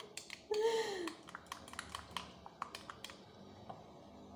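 Light, irregular clicks and taps of a spoon stirring a thick paste in a small glass, mostly in the first three seconds.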